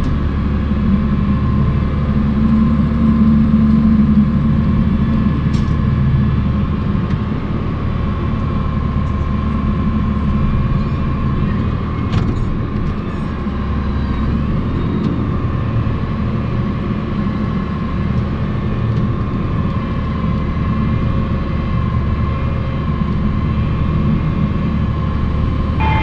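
Claas 95E rubber-tracked tractor's engine running steadily under load while it pulls a nine-furrow plough, with a steady high whine over the low engine drone. The sound eases slightly about halfway through.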